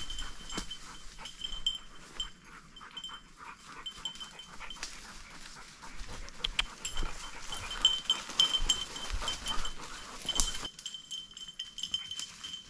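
A bell on a bird dog's collar jingling irregularly at one high pitch as the dog works through cover, over faint rustling of brush.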